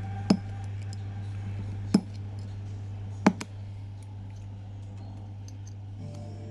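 Three sharp clicks, a second and a half or so apart, of small tools against an Omega Seamaster watch during a battery change, over a steady low hum.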